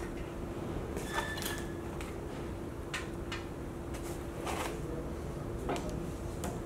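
Metal fan-linkage parts being lifted from foam packing in a cardboard box and set down on a tabletop: scattered light knocks and handling sounds, with a brief squeak about a second in. A steady low hum runs underneath.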